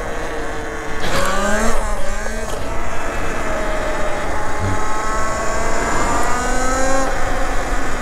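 Talaria Sting electric dirt bike accelerating on asphalt: the electric motor's whine climbs steeply in pitch about a second in, then rises slowly again until it stops about seven seconds in. Steady wind and road rush run underneath.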